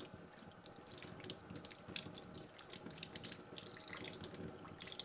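Kitchen tap running into a stainless steel sink while a gutted rockfish is rinsed under the stream by gloved hands. The steady flow is broken by irregular splashing and spattering as the water hits the fish and the steel, with a brief lull near the end.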